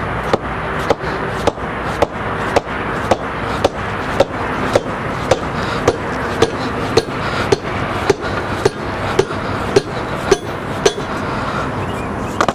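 Dead blow hammer striking a steel driver rod at a steady pace, about two blows a second, driving a catalytic converter canister down through a guide sleeve into a Malibu Monsoon exhaust manifold. Each blow is a short knock with a brief metallic ring.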